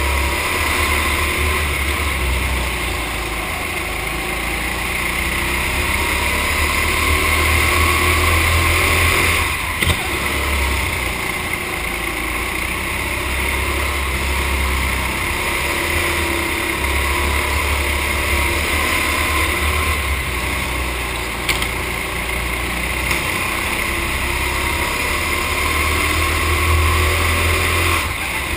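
Racing go-kart engine running hard through a lap, its note rising and falling with the throttle through the corners. Two brief sharp knocks stand out.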